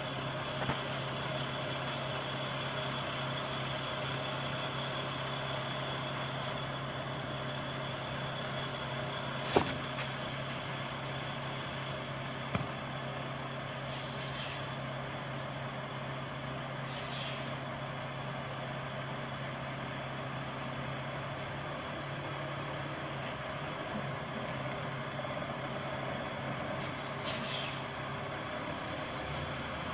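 Diesel semi-truck engine idling steadily, with three short hisses of air from the air brakes and a sharp click about ten seconds in.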